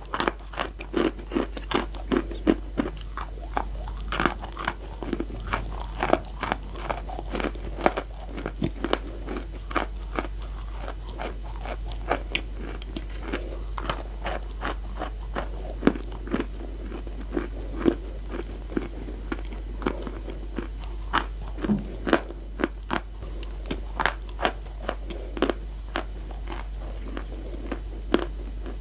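Close-miked biting and chewing of hard chalk and clay-chalk chunks: a steady run of sharp, irregular crunches, a few each second.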